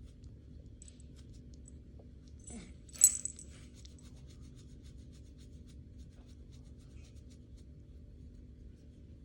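A single sharp click about three seconds in, with faint small ticks scattered around it over a low steady hum.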